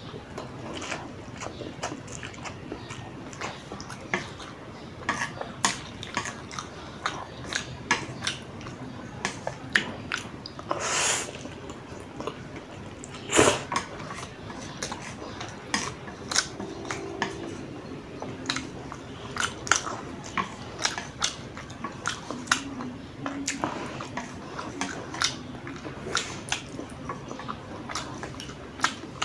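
Close-miked eating of instant noodles: wet chewing with lip and mouth clicks, and chopsticks clicking on the tray. A brief rushing sound comes about eleven seconds in, and a sharp click a couple of seconds later.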